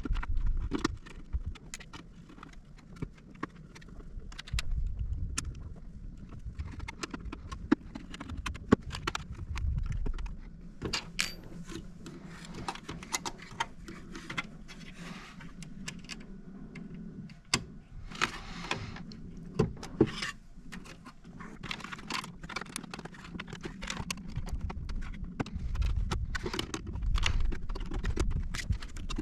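Irregular small clicks, taps and rattles of hands handling and fitting small hard parts, with a few sharper knocks and bouts of low rumbling handling noise.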